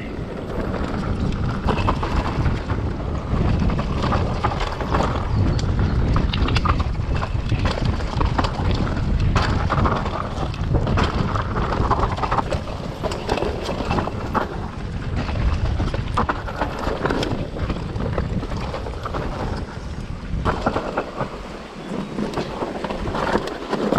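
Mountain bike descending a rocky trail at speed: wind rumbling on the microphone, with tyres rolling over stones and frequent sharp clicks and knocks from the bike rattling. It eases off a little near the end.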